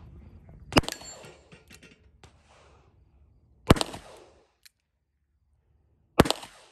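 Three shots from a 3-inch .357 revolver, about three seconds apart, each trailing off in a short echo. A brief ring from a struck steel target follows the first.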